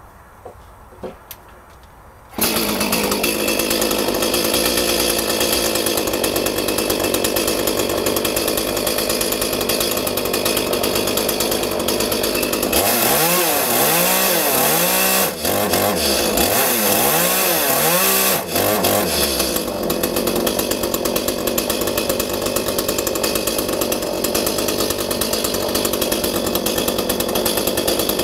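Echo CS-310 two-stroke chainsaw engine: a few light clicks, then the engine starts abruptly about two seconds in and idles steadily. From about halfway it is revved repeatedly, its pitch rising and falling five or six times, then it drops back to a steady idle.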